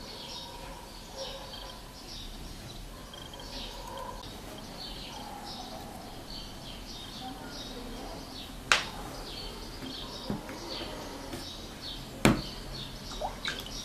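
Birds chirping in the background, many short high chirps over a low steady hiss. Two sharp clicks stand out, one about nine seconds in and a louder one about twelve seconds in.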